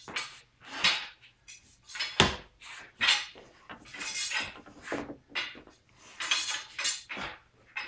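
A heavy all-iron guan dao being swung and spun, with a string of swishes through the air, one every half second to a second, and metallic clinking and rattling from the iron weapon. There is a low thump about two seconds in.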